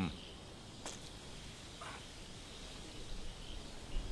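Faint night-time outdoor ambience with insects chirping, a single faint click about a second in, and a low rumble coming in near the end.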